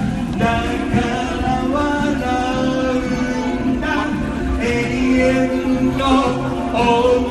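Amplified pop song with a singer holding long notes over backing music with a steady beat.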